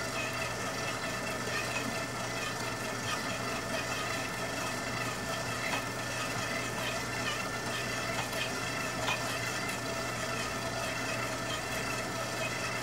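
Stand mixer running steadily with a low hum as it kneads a rich yeast dough, with a few faint clicks.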